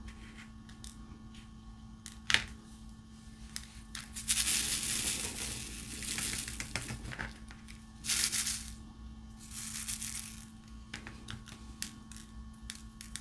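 Small resin diamond-painting drills rattling and sliding in a plastic tray, in several swishing bursts from about four to ten seconds in, the longest near the start of them. Around them are scattered clicks of drills and the multi-placer pen against the tray and canvas, with a sharp click about two seconds in.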